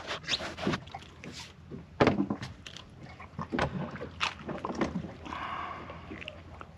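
Scattered knocks and clatter of gear being handled aboard a small fishing boat, over faint water sloshing against the hull.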